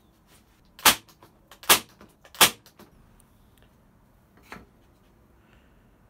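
Nail gun firing three times in quick succession, sharp cracks about 0.8 s apart, driving nails to fix the wooden birdhouse pieces together, followed by a fainter knock a couple of seconds later.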